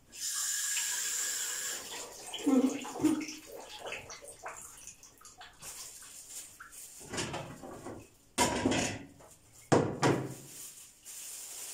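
A thin plastic bag rustling and crinkling as it is handled, with a ceramic plate clattering onto the counter twice near the end.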